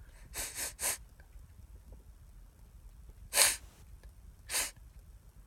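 A man's short, breathy sneezes, brought on by a cotton swab in the nose. Three quick ones come in the first second, then the loudest about three and a half seconds in, and another a second later.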